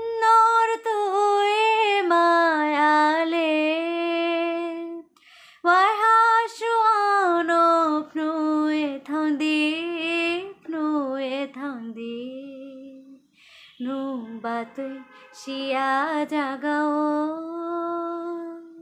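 A woman singing a Kokborok song solo with no accompaniment, holding long notes and decorating them with quick turns, with short breaths about five and thirteen seconds in.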